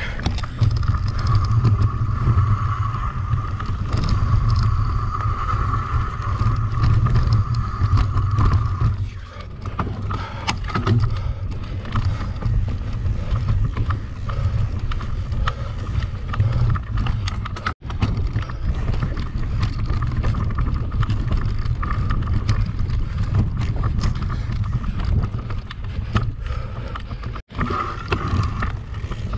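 Mountain bike ridden at race pace: a steady rush of wind on the microphone and tyre and trail noise. A steady whirring is heard over it until about a third of the way in and again near the end. The sound cuts out for an instant twice in the second half.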